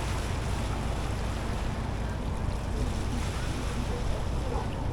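Steady wind noise on the microphone: an even, low rumbling hiss with no distinct events.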